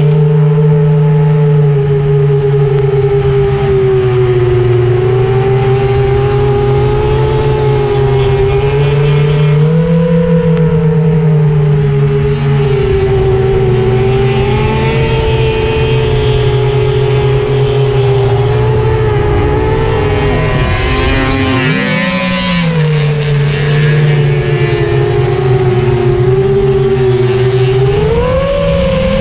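Ice-racing vehicle's engine running hard and continuously, its pitch wavering up and down with the throttle. About three-quarters of the way in the revs drop sharply and climb back, as on a lift or gear change.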